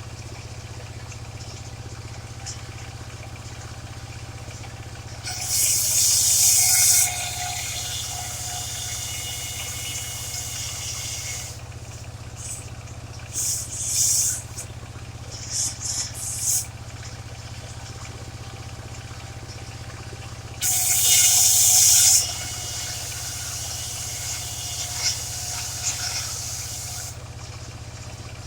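Engine of a mobile circular sawmill running steadily, with the blade cutting waru (sea hibiscus) timber in loud hissing bursts: two longer cuts about five seconds in and about twenty-one seconds in, and several short ones in between.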